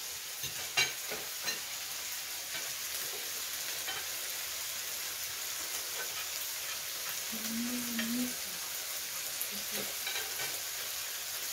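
Meat sizzling on an electric tabletop grill, a steady hiss, with a few light clicks of metal tongs against the grill plate as the pieces are turned.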